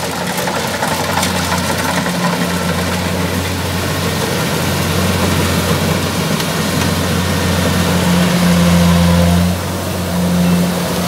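Kubota rice combine harvester working through standing rice: its diesel engine running steadily under load, with the noise of the cutting and threshing gear over it. It grows a little louder about eight seconds in, then dips briefly.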